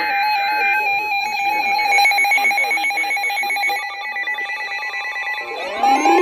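Electronic emergency alert tones: a steady beeping tone with a fast pulsing pattern through most of it, then rising siren-like sweeps starting near the end.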